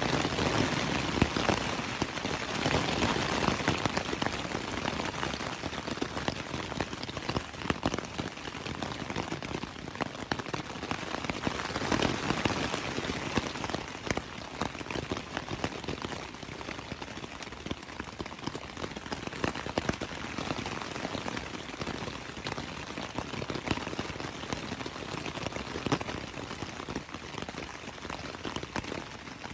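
Rain drumming on a tent's fabric, heard from inside the tent: a dense, steady patter of drops, heavier near the start and again about twelve seconds in, lighter toward the end.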